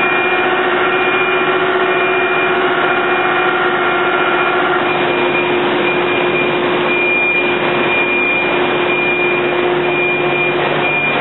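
Steady whirring and humming of production-line machinery running: a thin-film solar panel buffer and its conveyors. A few fainter tones drop out about halfway through, and a lower hum comes in near the end.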